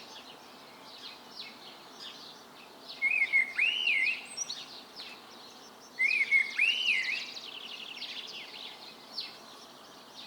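Dawn chorus of songbirds: many faint chirps and trills throughout, with one bird singing two loud phrases about three seconds apart, each a quick rising-and-falling whistle followed by a trill.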